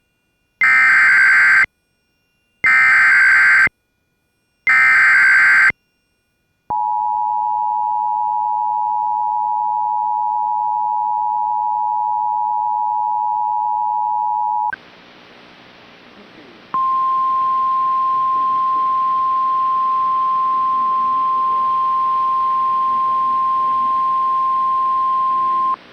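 Emergency Alert System severe thunderstorm warning relay: three screechy digital header bursts sound about a second apart. Then the two-tone EAS attention signal holds steady for about eight seconds. After a moment of hiss, the single steady NOAA Weather Radio warning alarm tone sounds over the hiss until just before the spoken message.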